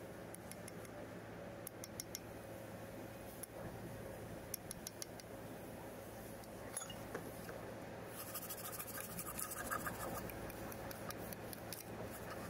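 Faint scattered clicks and light metal-on-metal scraping of a thin steel rod working against the bolted plate and grease inside a grader's front wheel hub, over a low steady hum.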